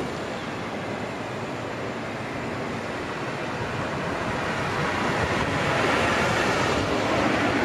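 Road traffic noise, with no crossing bell ringing: the tyre hiss of a passing vehicle swells about five seconds in and is loudest near the end.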